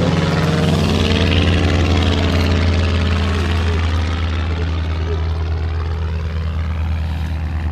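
A loud, steady low rumble buffeting the action camera's microphone, with a wavering hollow sweep in the higher range.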